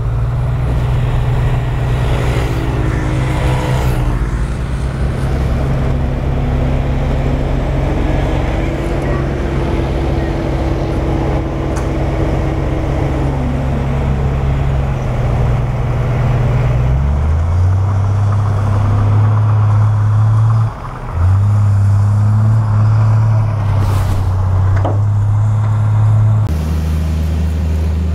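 Dump truck diesel engine running steadily while its hydraulic hoist tips the bed, with a whine that rises, holds, then falls away about halfway through. The engine note shifts pitch about two-thirds of the way in.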